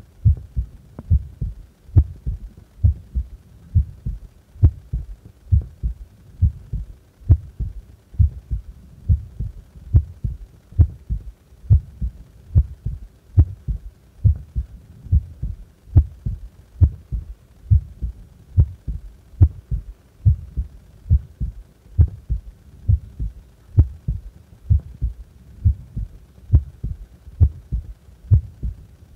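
Heartbeat of a heart at rest: steady, regular lub-dub double beats, low and thudding.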